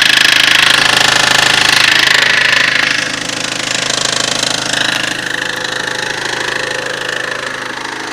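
Mitsubishi 4G64 inline-four engine running with a rapid knock. It is louder for the first three seconds, then drops a little and carries on steadily.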